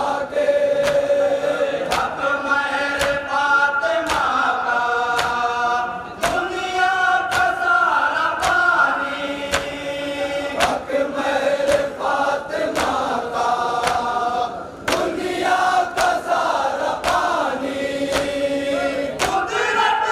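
Men chanting a noha (Shia mourning lament) together in a strong, sung chant, with sharp chest-beating slaps (matam) keeping time about every three-quarters of a second.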